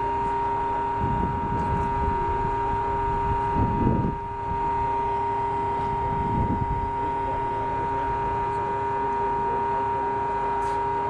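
A steady mechanical whine holding several constant pitches, with gusts of wind buffeting the microphone about a second in, near four seconds and again at six and a half seconds.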